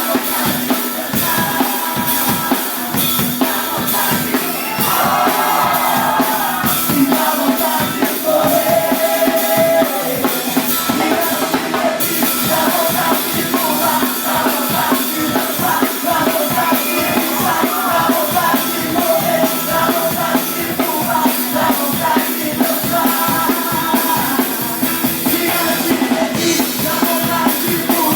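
Live band playing a worship song: a drum kit keeps a steady beat with bass drum and snare under a melody line and some singing.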